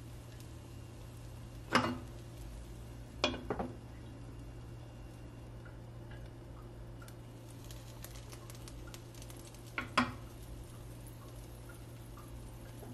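Kitchen clatter: a few sharp clinks and knocks of dishes and utensils, once about two seconds in, twice in quick succession a little later, and twice again near the end. Light ticking in between, over a steady low hum.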